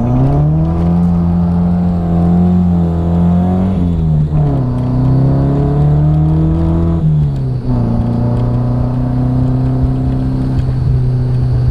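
Nissan 240SX engine revving hard and held at high revs. The pitch drops twice, about four and seven seconds in, then runs steady.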